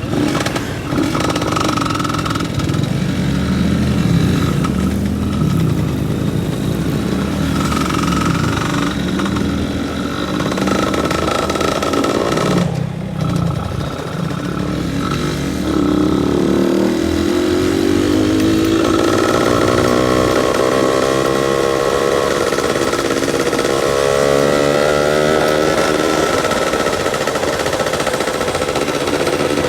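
Yamaha F1ZR's 110 cc single-cylinder two-stroke engine running on light throttle, its pitch rising and falling with small blips of the throttle. There is a brief drop in level about halfway through.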